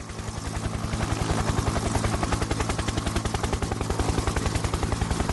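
Electronic logo-intro sting: a fast, even low pulsing, many beats a second, over a steady low hum and a bright hiss.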